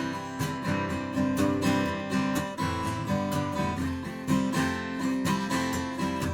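A c.1942–43 Gibson Southern Jumbo acoustic flat-top guitar being played: chords and single notes, with several picked or strummed attacks a second.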